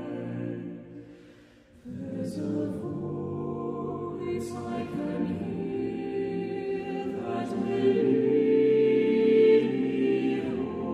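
Mixed a cappella vocal ensemble of men and women singing a slow song in harmony with sustained chords. A phrase fades out about a second in, the voices come back in about two seconds in, swell near the end and release the chord just before the end.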